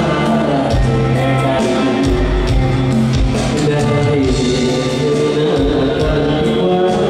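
Male vocal group singing in harmony with a live band, drums and bass prominent, amplified through a PA system.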